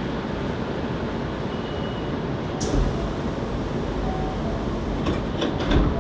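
Hankyu 7300 series electric train running, a steady rumble of wheels and motors heard from inside the car. There is a sharp hissing click about halfway through and a couple of low thumps from the wheels.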